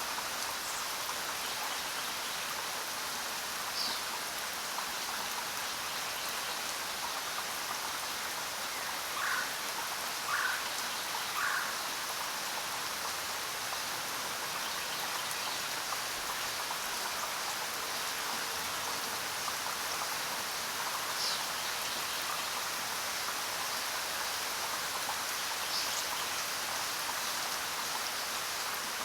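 Steady jungle rain, an even hiss. A few short animal calls sound over it: three in a row about a second apart a third of the way in, and single high chirps now and then.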